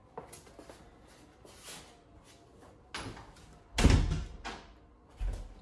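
An interior door shutting with a heavy thud about four seconds in, among lighter knocks and clicks, with another thud about a second later.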